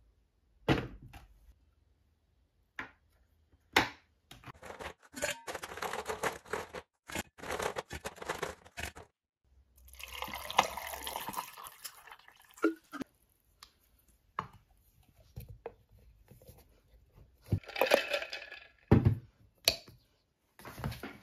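Water poured from a glass bottle into a steel tumbler over a tea bag, with a rushing pour a little before the middle. Around it are clinks, clatter and knocks from handling the tumbler, its plastic lid and a plastic ice scoop.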